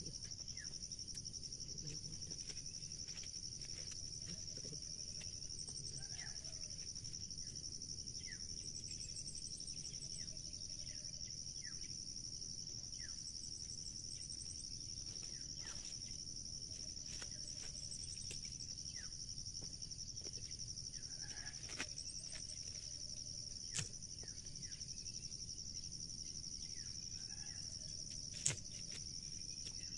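Insects chirring in a steady, high drone, with a second, pulsing chirr above it. Over this come the soft rustles and a few sharp snaps of dry corn husks being stripped by hand, the loudest snap near the end.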